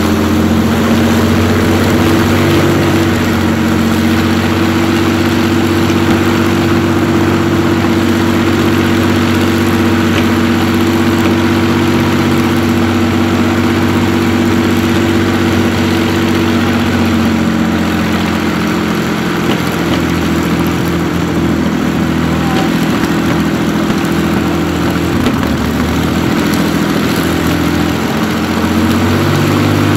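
Rolls-Royce Merlin V12 aero engines with propellers idling steadily. The note thins out for a stretch about two-thirds of the way in, then fills back out near the end.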